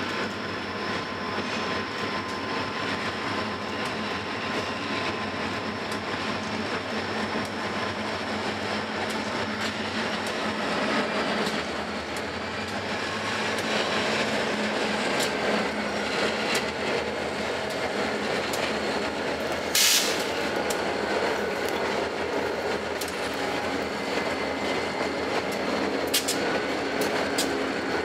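Freight train led by diesel locomotives crossing a steel girder bridge: a steady rumble of engines and wheels, with one sharp bang about twenty seconds in and a few clicks near the end.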